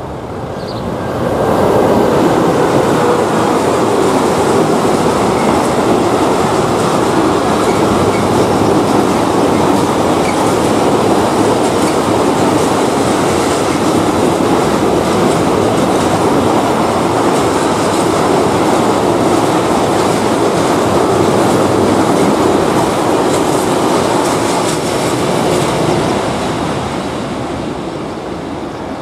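Freight train of covered hopper wagons passing over a level crossing: steady loud rumble and clatter of wheels on the rails. It builds up about two seconds in and fades near the end as the last wagons go by.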